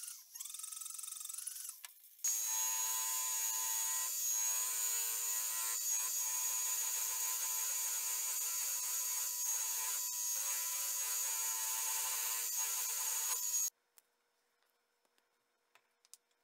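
A rotary tool whines for about two seconds, then a drill press spinning a buffing wheel runs steadily for about eleven seconds while a small handle fitting is pressed against the wheel. It cuts off abruptly, leaving a few faint clicks.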